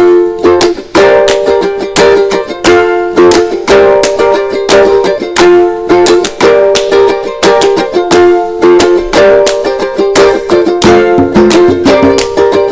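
Background music led by a strummed plucked-string instrument in a steady, even rhythm.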